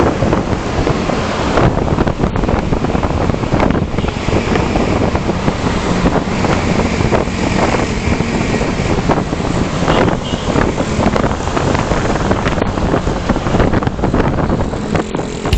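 Loud, steady wind rush over the microphone of a moving motorcycle, buffeting throughout, with vehicle and road noise buried beneath it.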